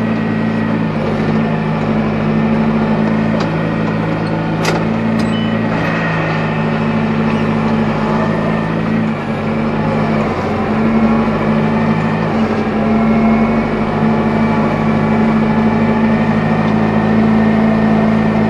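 Tractor engine running steadily while towing a rotary hay rake, its note shifting slightly about nine to twelve seconds in. A couple of sharp clicks come about five seconds in, and wind rumbles on the unshielded microphone.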